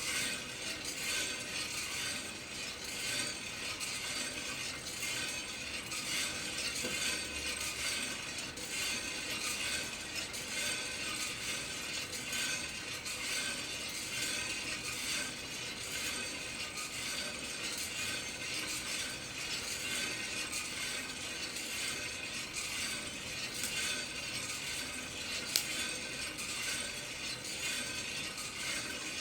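Coffee beans tumbling and rattling inside the rotating drum of a Kaldi home coffee roaster: a steady, dense clatter of fine clicks, with one sharper click about 25 seconds in.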